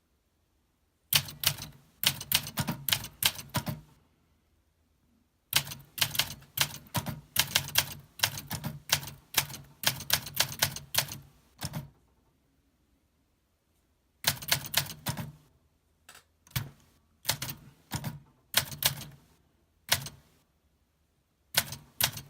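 1964 Olympia SM9 manual typewriter being typed on: runs of sharp key clacks at several strokes a second, broken by pauses of a second or two between runs.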